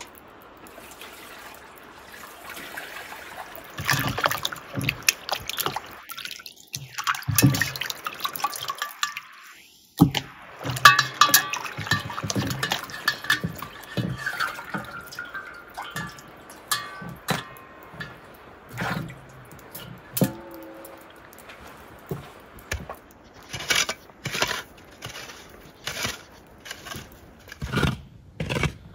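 Water splashing and sloshing in a metal basin as raw chicken is washed by hand. Near the end, a run of short sharp scrapes as a shovel digs into snow.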